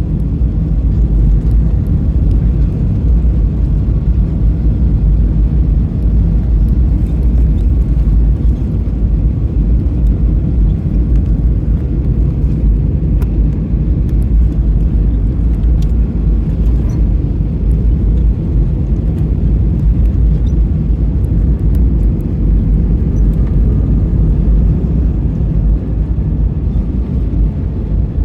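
Steady low rumble of an airliner's cabin noise on approach, engine and airflow noise heard from a window seat, with a faint steady hum and a few light clicks.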